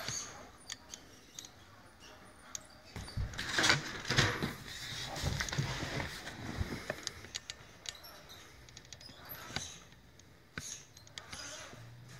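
Axial SCX10 radio-controlled rock crawler working its way over leather sofa cushions: short, uneven bursts of electric-motor and gear whir with scrapes and clicks, loudest a few seconds in.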